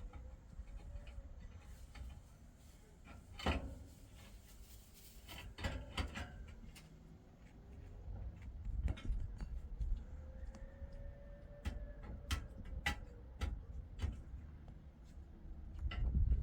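Scattered knocks and clicks, a dozen or so at uneven spacing, over a steady low rumble.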